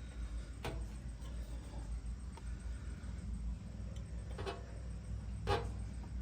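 A low steady hum with a few light clicks or taps: one about a second in and two more near the end.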